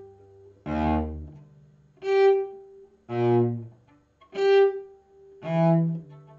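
A cello playing single bowed notes about a second apart, five in all, alternating a different lower note with the same G each time; the G rings on after each stroke. This is an intonation drill for finding the G by ear and by muscle memory.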